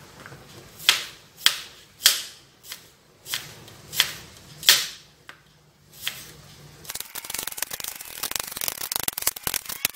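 Kitchen knife slicing shallots on a plastic cutting board: separate sharp chopping strokes at a little under two a second, then from about seven seconds in a fast run of quick knife taps.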